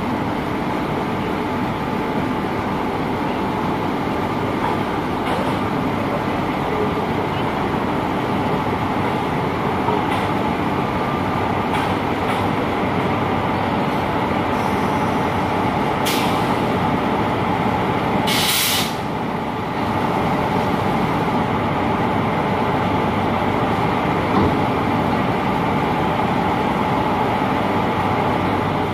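WAP-4 electric locomotive running steadily as it creeps up to couple onto the train. A short hiss of released air comes about 16 seconds in, and a longer one about 18 seconds in.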